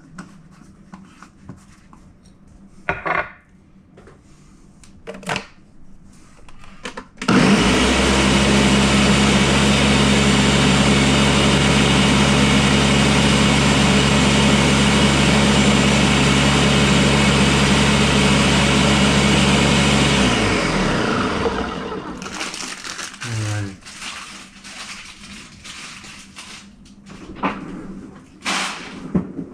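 Countertop blender switched on about seven seconds in, running steadily for about thirteen seconds as it blends a protein shake, then spinning down with a falling whine. A few knocks and clicks come before and after.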